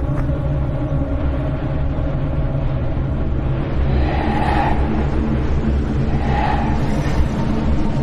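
Spooky sound-effect ambience: a loud, steady low rumble, with two brief higher swells rising over it about four and six seconds in.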